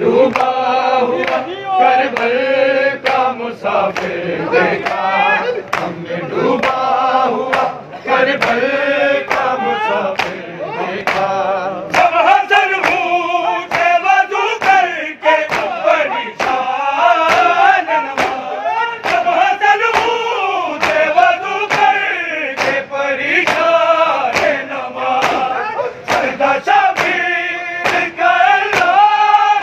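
A group of men chant a noha, a Shia mourning elegy, together in a sung chorus, over a steady rhythm of sharp beats from matam, hands striking bare chests.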